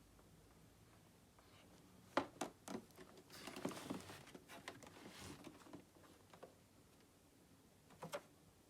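Quiet handling noises: a few light clicks and knocks, a short stretch of rustling, more small ticks, then a pair of clicks near the end, as of packaging or machine parts being handled by hand.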